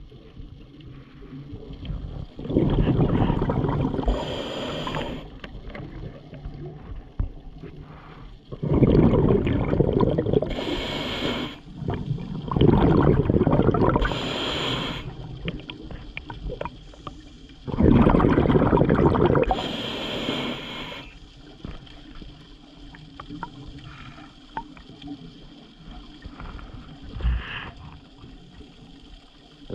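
Scuba diver breathing underwater through a regulator, with exhaled bubbles: four loud rushes of breath, each two to three seconds long, then a quieter stretch of faint underwater noise in the last third.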